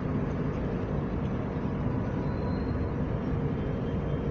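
Steady low background rumble of room noise, with no distinct event.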